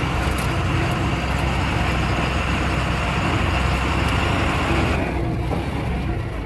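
Truck's diesel engine running with road noise, heard from inside the cab while driving. About five seconds in the rushing noise eases off while the low engine drone carries on.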